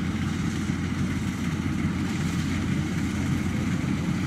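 Combine harvester's diesel engine and threshing machinery running steadily at working speed: a constant low drone with a steady hum and a rushing noise above it.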